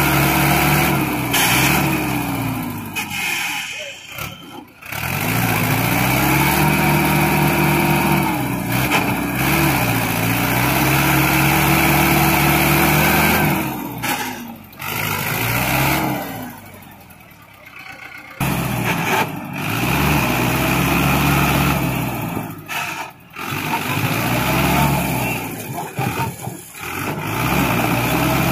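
Mahindra Arjun tractor's diesel engine working hard under a heavy load, its pitch rising and falling as it revs up and down, with a few abrupt breaks and a quieter stretch in the middle.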